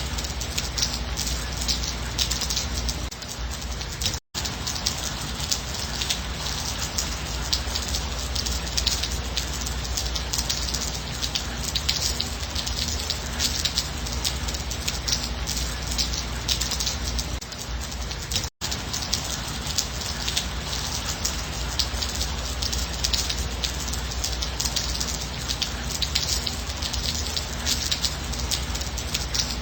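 Steady gentle rain, a dense patter of drops. It cuts out for an instant twice, about four seconds in and about eighteen seconds in.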